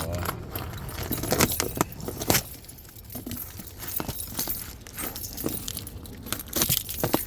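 Packaging on a consumer firework cake rustling and crinkling as it is unwrapped and handled, with scattered small clicks and crackles.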